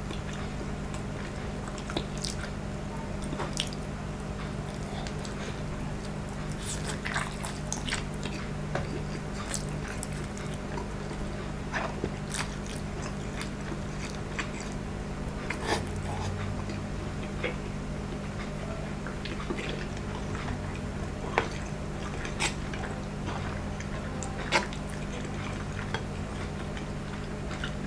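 Close-miked chewing and slurping of instant noodles and luncheon meat: scattered wet mouth clicks and smacks over a steady low hum.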